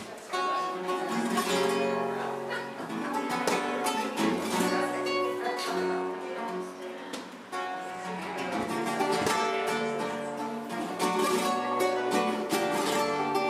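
Flamenco guitar music: an acoustic guitar played with quick plucked runs and strummed chords.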